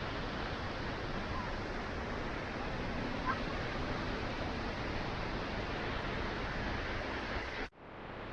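Steady rushing of the waterfall's falling water, heard from down the trail, cut by a brief dropout near the end.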